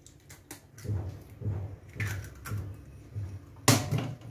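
Kitchen handling sounds as an egg goes into a glass bowl of semolina: light knocks and rustles, then a sharper clatter near the end as a small ceramic dish is picked up off the granite counter. A faint low throb repeats about twice a second underneath.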